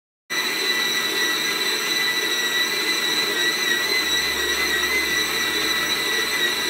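Electric stand mixer motor running steadily with a high whine, its dough hook kneading bread dough in a steel bowl. The sound starts abruptly a fraction of a second in.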